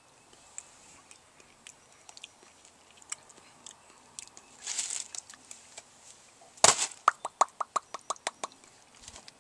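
A person tasting hot sauce in the mouth: faint lip smacks and mouth clicks, then a short hissing breath about halfway through. Near the end comes one sharp snap, followed by a quick, even run of about ten clicks, roughly six a second.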